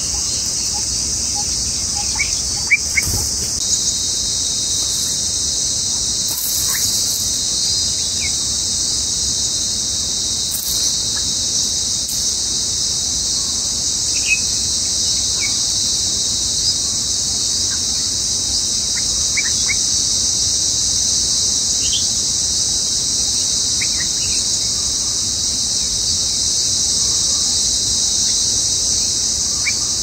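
Steady, high-pitched insect chorus, the loudest sound throughout, with short bird chirps scattered over it.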